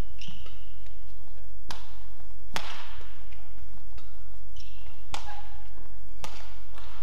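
Badminton rally: four sharp racket hits on a shuttlecock at uneven intervals, two close together a couple of seconds in and two more later. Short high squeaks of court shoes on the mat sound between the hits.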